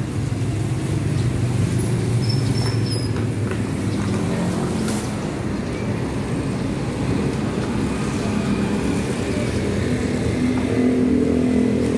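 Street traffic: cars and motorcycles running and passing, a steady low engine rumble, with one engine's drone growing stronger near the end.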